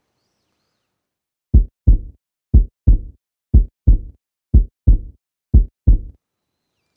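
Heartbeat sound effect: five heavy, low lub-dub double beats, one pair per second, starting about a second and a half in.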